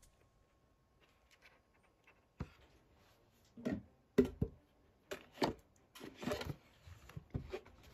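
Hard plastic Halloween pails being handled: a string of knocks, clatters and rubbing as they are tipped, set down and turned over. It starts about two and a half seconds in, and the loudest knock comes just after four seconds.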